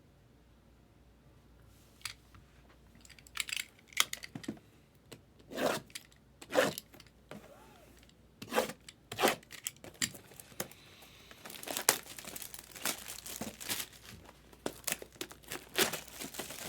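Packaging being torn and crinkled by hand in a run of short, irregular crackles and tears. It begins about two seconds in and grows busier in the second half.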